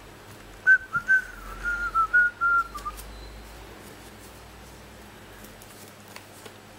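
A person whistling a short phrase of about nine quick, clear notes that step slightly down in pitch, lasting about two seconds, followed by faint rustling of the paper being handled.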